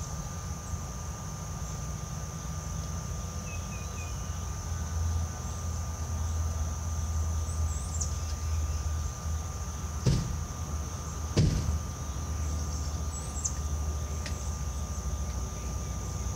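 Two sharp knocks, about a second and a half apart, from hand work on an AC condenser unit during a capacitor replacement, with a few fainter ticks. Underneath is a steady low hum and a thin, steady high whine.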